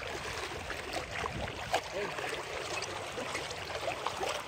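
Small sea waves lapping and splashing around people wading in shallow water, a steady run of irregular little splashes.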